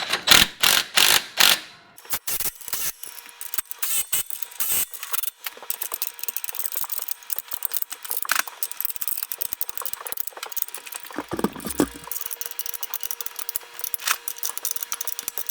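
Ratchet wrench tightening mounting bolts, its pawl clicking rapidly and steadily, after a few louder knocks in the first second or two.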